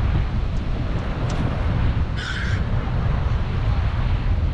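Wind buffeting the microphone over surf at the beach, with a single short bird call about two seconds in.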